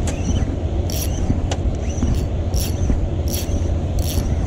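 Drag of a Versus Carbontech 4000 spinning reel squealing in short bursts, about one every second, as line slips under a fish's pull while the handle is cranked. A steady low rumble runs underneath.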